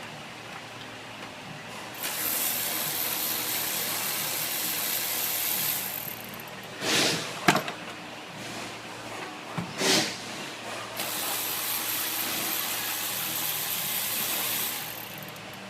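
Steady hissing, like air or spray under pressure, in two stretches of about four seconds each. Between them come a few short, louder bursts.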